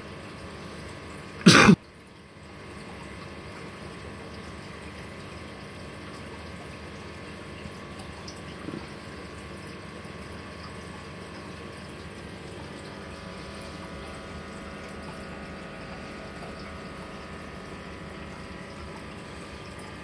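Steady hum and water noise of fish-room aquarium equipment: air-driven sponge filters and pumps running. About a second and a half in, a single sharp loud burst, much louder than the background.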